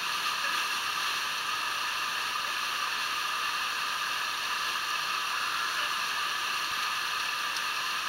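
Small waterfall pouring steadily through a narrow rock chute into a pool, an even rushing hiss with no breaks.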